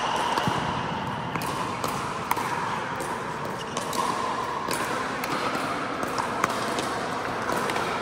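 Pickleball paddles striking a plastic pickleball during a doubles rally: sharp pops at uneven intervals, about one a second, ringing in the large hall.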